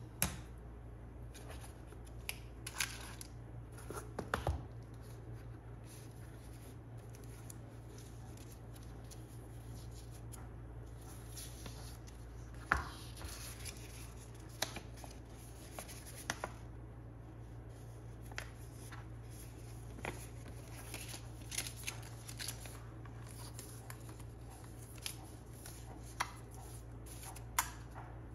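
Hands handling an iPad box and its packaging: scattered light clicks, taps and short rustles of cardboard and plastic, over a steady low hum.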